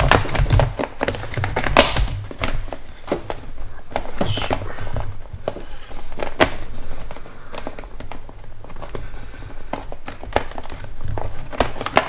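Hands fitting plastic engine-bay parts and wiring into place: scattered, irregular knocks, taps and clicks of plastic, with a low hum underneath.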